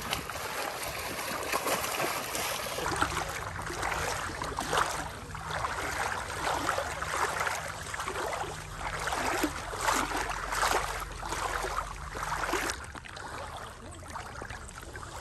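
River water splashing and flowing in irregular bursts, with a low steady hum underneath that cuts off about thirteen seconds in.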